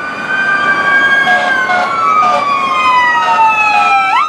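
Two or three emergency-vehicle electronic sirens wailing together, their pitches sliding slowly downward, then one sweeping sharply up near the end. Short, repeated horn blasts cut in over them.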